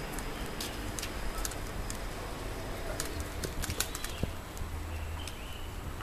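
City street ambience picked up by a handheld camera on the move: a steady low rumble with scattered short clicks and rustles of handling.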